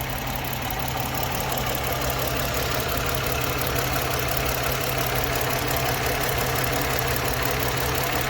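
2010 Ford Escape's 3.0-litre V6 idling steadily with a cylinder #4 misfire, which the mechanic traces to a shorted #4 fuel injector.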